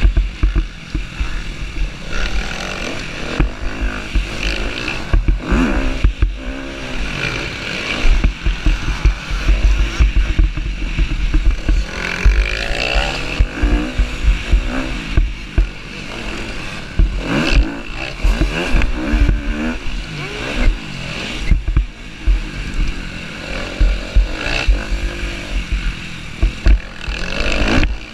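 Husqvarna TC250R motocross bike's engine revving up and falling back over and over as it is ridden hard around a dirt track, with heavy wind buffeting on the onboard microphone.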